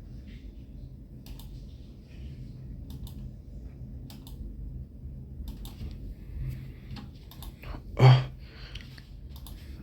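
Scattered light clicks and taps, with one louder knock about eight seconds in, over a steady low hum.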